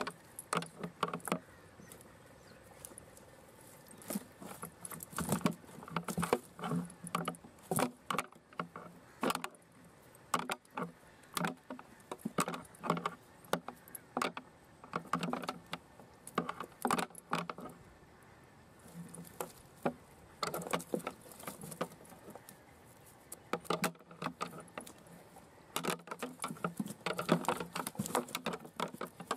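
Irregular rapid tapping and clicking of live prawns and fish flipping against a plastic crate, in clusters with brief lulls.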